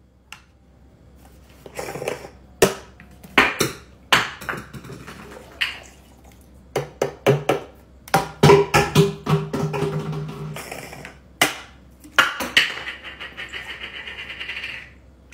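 Knocks and clinks of glass, bottles and ice on a kitchen counter, as a mason jar of ice is filled. Liquid glugs out of a bottle into the jar around the middle. A steady pour runs near the end.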